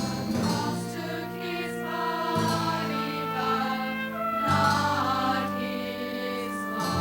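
Church choir singing held chords over instrumental accompaniment, the bass moving to a new note about two and a half seconds in and again about four and a half seconds in.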